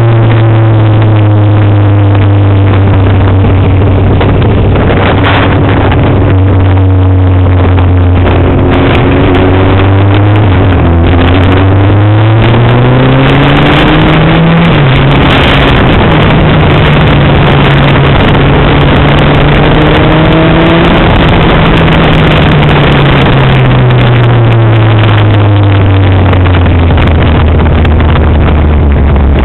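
An engine running loud and hard, its pitch sinking slowly, climbing again about eleven seconds in, holding steady, then sinking again near the end, over a constant rushing noise.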